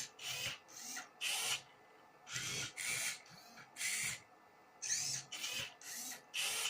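Motors of a homemade Rubik's cube solving robot turning the cube's faces move by move: about a dozen short whirring bursts with brief pauses between them, some rising or falling in pitch as the motor speeds up and slows down.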